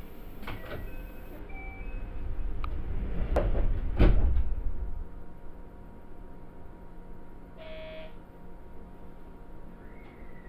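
Sliding passenger doors of a JR Shikoku 5000 series train closing at a station stop: a few short beeps, then two thumps as the doors shut, the second the loudest, about three and a half and four seconds in. A short buzz follows near eight seconds, and near the end a tone glides downward.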